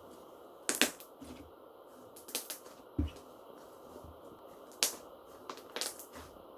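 Slime being squeezed and played with by hand, giving a series of sharp pops and clicks at uneven intervals, about seven in all.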